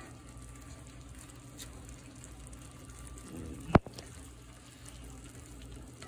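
Steak and broccoli cooking in sauce in a cast iron skillet, a steady low sizzling and bubbling as it is stirred with a spoon. A single sharp knock sounds just before four seconds in.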